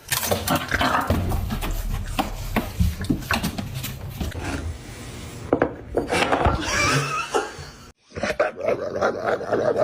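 A pet animal making noises, with many short sharp sounds. The sound cuts off suddenly about eight seconds in, and a new burst of pitched calls follows.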